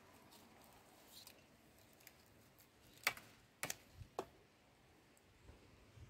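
Black grape bunches being picked off a vine by hand: a handful of sharp clicks and snaps in the middle, with quiet handling between them.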